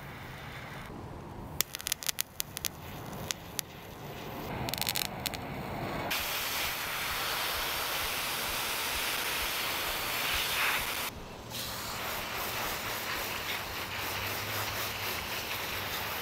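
Garden hose spray nozzle hissing steadily as water sprays over the garden beds. It starts about six seconds in after some scattered clicks, and breaks off briefly once.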